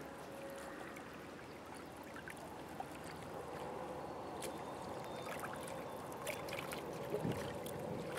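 Small waves lapping and trickling against a rocky shoreline in a steady wash, with scattered small splashes. In the first second, the last of a ship's horn fades away.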